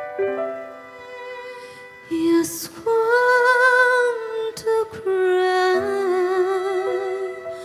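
Live ballad: a female vocalist holding long notes with vibrato, accompanied by piano and violin.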